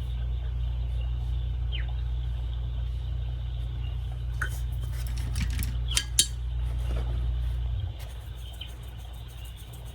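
Light clinks and taps of a paintbrush against a gouache palette or water cup while a colour is swatched, a few of them about halfway through, over a low steady hum that drops in level near the end.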